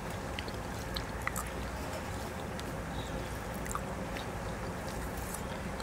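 Fingers mixing cooked rice on a banana leaf, making faint scattered ticks and soft rustles over a steady low background rumble.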